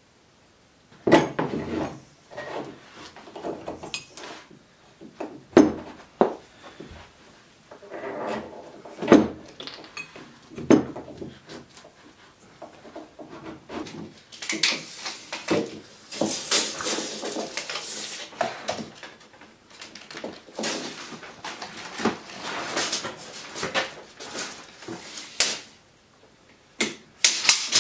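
Hydraulic hoses, metal fittings and tools being handled on a wooden workbench: a few sharp knocks and clunks, then a longer stretch of rustling and clattering.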